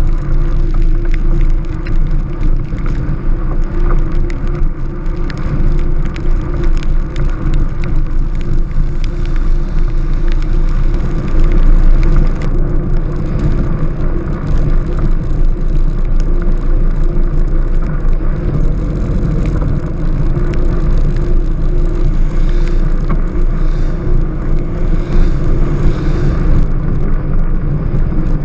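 Strada carbon velomobile rolling on a wet road: a steady, loud low rumble of tyres and drivetrain, with a scatter of small sharp ticks.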